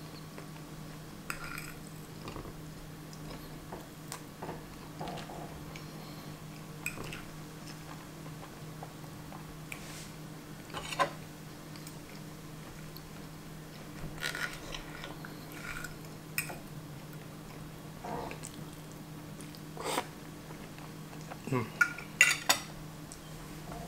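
Metal fork and knife clinking and scraping against a plate while cutting food, in scattered clicks that come in a quick cluster near the end, over a faint steady low hum.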